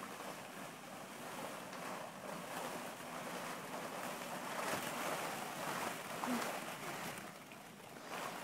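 Hollow plastic ball-pit balls rustling and clattering against one another as toddlers wade and crawl through them: a continuous shifting rattle made of many small clicks.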